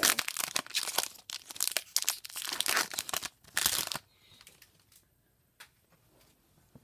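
Foil Pokémon booster-pack wrapper crinkling and rustling as the opened pack is handled and the cards are pulled out. The crinkling stops about four seconds in, leaving near quiet with a few faint clicks.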